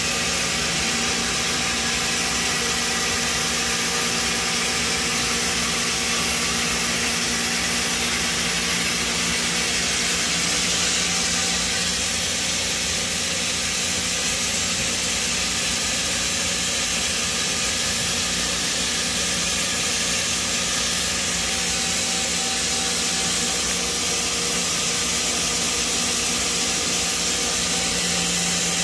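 Mazak Integrex 100-IV ST CNC turn-mill lathe powered up and running at rest: a steady hum with constant hiss, unchanging throughout.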